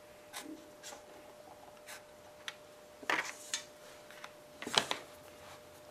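Felt-tip marker making a few light ticks and rubs on cardboard as marks are traced around a rusted sheet-metal basket, then two louder brief rustles of the cardboard and basket being handled, about three and five seconds in.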